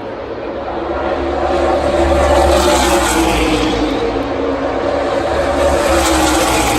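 NASCAR Xfinity stock cars' V8 engines at full throttle as racing cars pass by at speed. The sound swells about two seconds in and again near the end.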